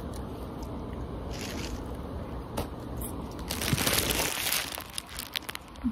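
Crunching and crinkling handling noise close to the microphone, from hands taking sliced mango beside a plastic bag, with scattered clicks. The loudest part is a burst of about a second from about three and a half seconds in.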